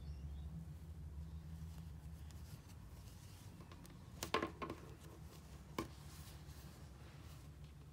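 Faint steady low hum, with a few short clicks a little past the middle.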